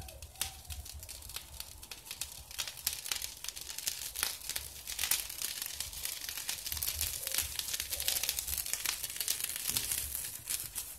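Omelette frying in a little butter and oil in a pan on low heat: irregular crackling and spitting that gets busier after about two seconds.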